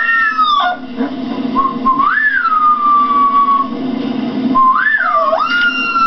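Rottweiler puppy howling: drawn-out howls that rise sharply in pitch and then slide slowly down, one trailing off just after the start, one about two seconds in and another about five seconds in.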